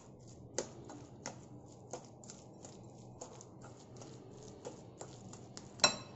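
A metal spoon clicking against a glass bowl while stirring a thick minced-chicken mixture, a patter of light ticks about two to three a second, with one sharper ringing clink near the end.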